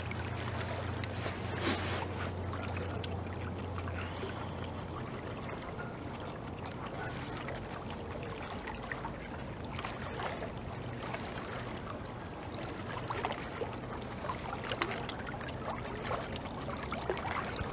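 Water trickling and lapping close around a North American beaver as it gnaws bark off a branch, with a few short crunching sounds spaced several seconds apart. A low steady hum stops about four seconds in.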